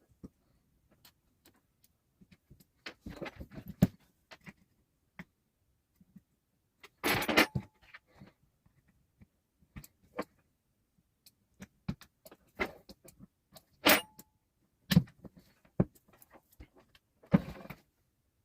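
Irregular clicks, taps and short rattling scrapes of a soldering gun's hard plastic case and small parts being handled and pushed together, with a few louder clusters spread through.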